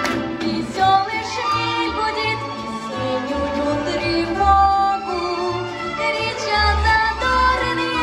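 A woman sings a wavering, gliding melody, accompanied by a military brass band.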